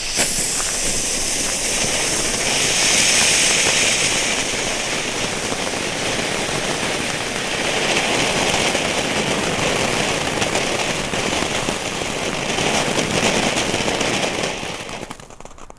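Small category F1 youth-firework ground fountains ('volcanoes') spraying sparks with a steady rushing hiss, which fades out about fifteen seconds in.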